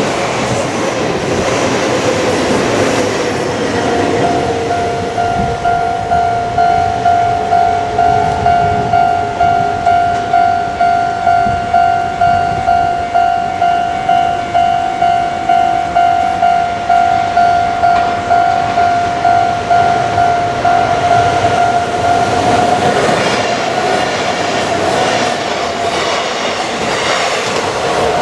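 Train passing over a Japanese railway level crossing, then the crossing's warning bell ringing a steady, even ding-ding beat of about one and a half strokes a second. Near the end another train runs across, its noise swelling over the bell.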